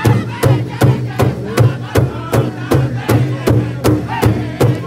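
A powwow drum group striking a large powwow drum together with drumsticks in a steady beat of nearly three strokes a second, while the men sing in unison over it.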